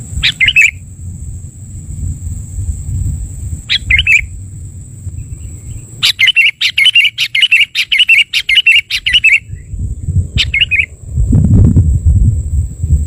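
Sooty-headed bulbul (kutilang) calling: three short calls spaced a few seconds apart and, midway, a fast run of repeated notes lasting about three seconds.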